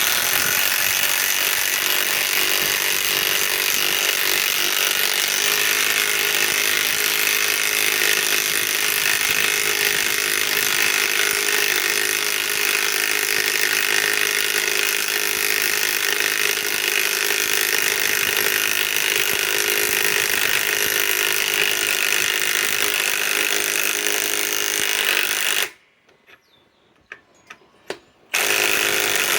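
Milwaukee M18 Fuel second-generation mid-torque impact wrench hammering a 6-inch lag screw into wood with a 15/16 socket, running without a break for about 25 seconds. It stops for a couple of seconds with a few light clicks, then starts hammering again near the end. The lag stalls partway in, short of full depth, because the wrench cannot drive it all the way.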